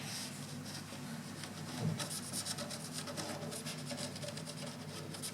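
Felt-tip permanent marker rubbed over chips in a cupboard's surface, a soft scratchy sound in many quick short strokes, with a faint low steady hum underneath.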